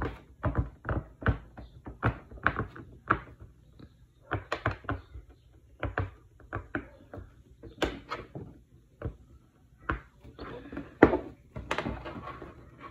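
Silicone pop-it bubble fidget toy being pressed bubble by bubble with the fingertips: a string of irregular short pops, a few a second, with one loud pop about eleven seconds in.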